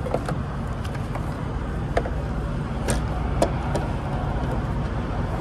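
A few sharp clicks and knocks of a semi truck's metal hood latch being worked by hand, over a steady low rumble.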